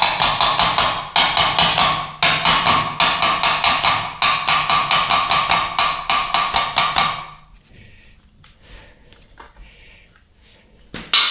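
Rapid hammer blows on metal, about five a second, driving apart the water pump's shaft and bearing assembly; the blows stop about seven seconds in, followed by faint clinks of handling.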